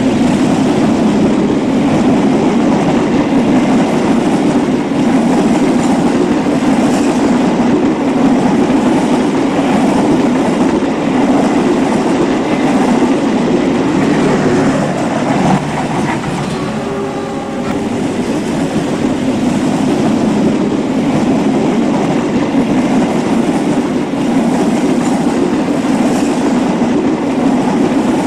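A train running steadily along the track with a continuous rumble and wheel clatter, easing off slightly about sixteen seconds in and picking up again.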